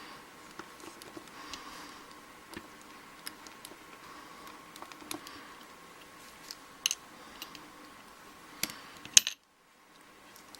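Scattered small metallic clicks and taps of hand tools working on a Schlage pin-tumbler lock cylinder as its retaining screw on the back is taken out, over a faint steady hum. A louder click comes near the end, then the sound cuts out briefly.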